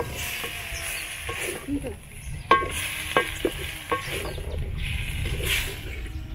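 A wooden stirring stick scraping around a metal cooking pot of liver and tomatoes, over a steady sizzle from the pot. In the middle come a few sharp, ringing knocks of the stick against the pot.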